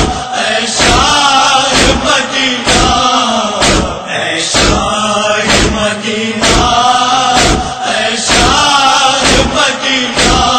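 A noha lament being chanted, the voice held on long wavering notes. Sharp slaps fall in a steady beat about once a second, the chest-beating (matam) that keeps time with a noha.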